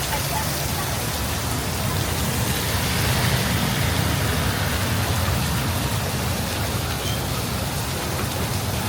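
Heavy rain pouring steadily, a dense even hiss that swells a little a few seconds in.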